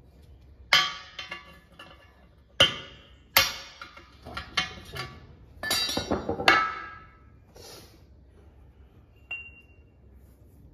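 Hammer blows on steel, each with a metallic ring, driving a rust-seized pin out of a steel arm. After these come clinks and clatter of loose steel pins and punches being handled and set down, with one light ringing clink near the end.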